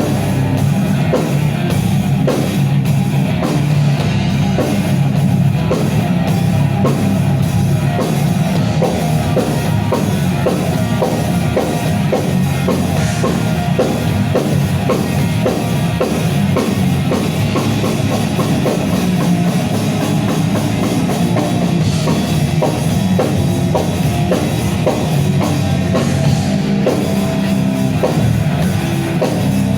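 A nu metal band playing an instrumental passage with no vocals: a drum kit keeping a steady beat under electric guitar and bass.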